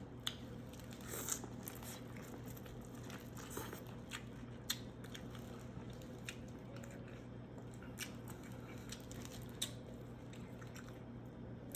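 Close-up eating sounds of a person chewing seafood boil with smacking lips: soft, wet mouth clicks at an irregular pace of about one a second, over a faint steady hum.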